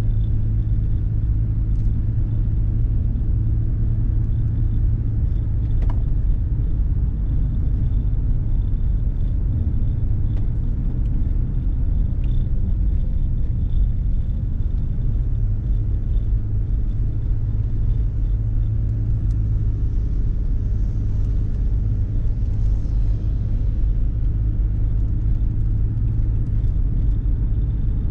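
Car driving along at a steady pace: an even, low road-and-engine rumble with no marked changes.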